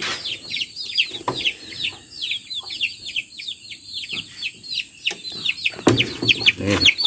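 Chicks peeping continuously: a quick run of short, falling peeps, several a second and overlapping. A brief lower-pitched sound comes in about six seconds in.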